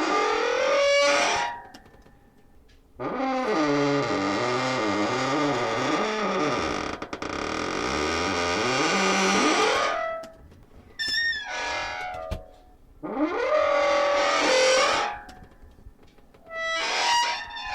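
Creaky stove door hinge squealing as the door is swung, in several separate creaks: a long, wavering one of about seven seconds, then shorter ones that rise and fall in pitch.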